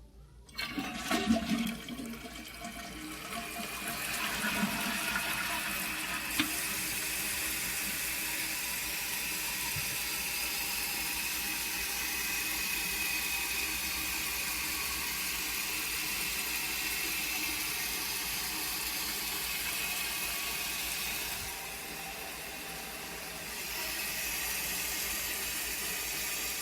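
A 1995 Mansfield Alto toilet flushing: a sudden rush of water as the flush starts, then a long steady hiss of the tank refilling, with a faint high whistle from the fill valve. The hiss drops briefly about 22 seconds in, then comes back.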